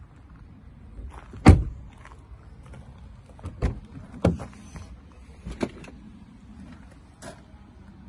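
Car door and its fittings being handled: one heavy thump about a second and a half in, then four lighter knocks and clicks spread over the next six seconds.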